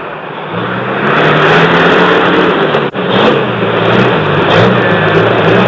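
Car engine running as the vehicle drives along, its pitch wavering up and down with the throttle, with a momentary dropout about three seconds in.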